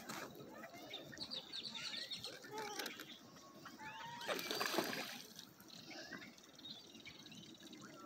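Lake water lapping and sloshing around dabbling ducks tipping up to feed, with many short bird chirps and calls throughout. A louder rush of noise comes about four to five seconds in.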